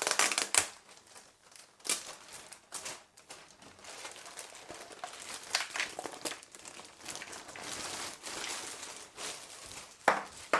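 Packaging crinkling and rustling as a set of light barn doors is unwrapped by hand, with scattered sharp clicks and knocks from handling.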